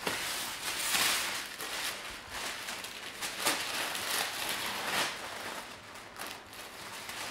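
Masking paper and tape being peeled off a freshly painted car body and crumpled in the hand: papery crackling rustles that come in uneven surges.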